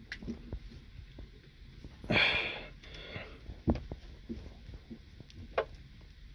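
Pliers crimping a waterproof butt connector onto a wire: a few sharp clicks and knocks, with a breath about two seconds in.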